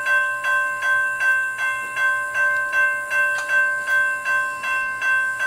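Railroad crossing warning bell ringing in a steady rhythm, about two and a half strikes a second. The crossing signal has just been activated by an approaching train, with its lights flashing and gates lowering.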